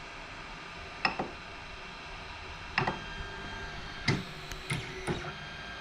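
Sovol SV01 3D printer auto-homing: a handful of sharp clicks, some in close pairs, as the carriages strike their limit switches, over the steady whine of the stepper motors, which changes pitch about three seconds in.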